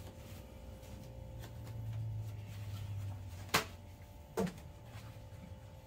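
Two sharp knocks a little under a second apart, made as a roll of kitchen paper is handled over a kitchen counter, heard against a low steady hum.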